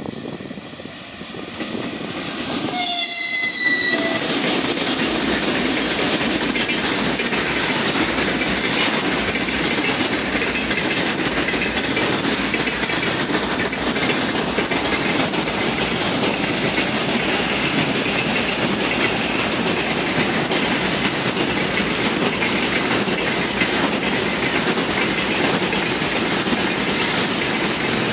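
An electric locomotive sounds a short horn blast about three seconds in as it arrives, then a long freight train of tank cars rolls past close by: a steady rumble of wheels on rail with a clickety-clack of wheels over rail joints.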